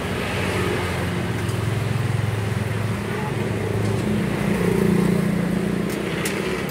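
A motor vehicle's engine running close by, rising in pitch and loudness about four to five seconds in, over street traffic noise. A few light clicks of a metal spatula on a flat griddle.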